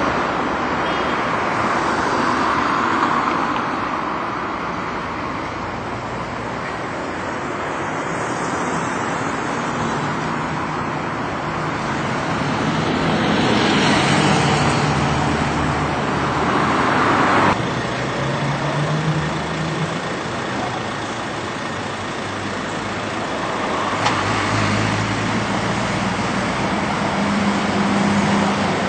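Classic double-decker buses driving past one after another on a road, each bus's diesel engine growing louder as it approaches and fading as it goes by, over general road traffic.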